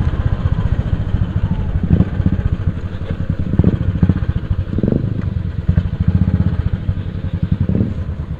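Motorcycle engine running with a steady, rapid low pulsing, and a few brief louder surges.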